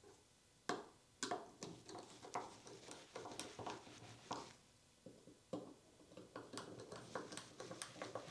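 Faint, irregular clicks and taps of small metal parts as a fence is screwed onto a hand router plane.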